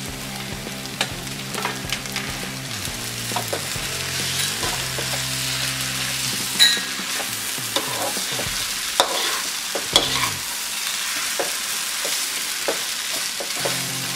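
Noodles and vegetables sizzling in a hot wok as they are stir-fried with a wooden spatula, which knocks and scrapes against the pan at irregular moments. One sharper clank comes about halfway through.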